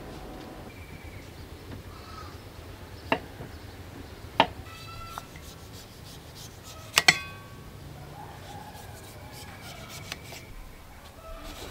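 Tableware clinking: a few sharp knocks, the loudest a double clink about seven seconds in that rings briefly, over low steady background noise.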